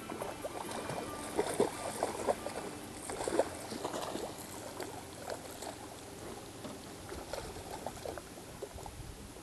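Water splashing and sloshing as a hooked striped bass thrashes at the surface beside the boat. The splashes come in quick, irregular bursts, heaviest in the first few seconds, then lighter.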